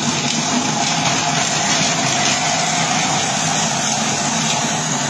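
Multifunction kitchen robot's blender jug running at high speed, blending forest fruits and honey into ice cream: a loud, steady motor whir with a dense churning noise over it.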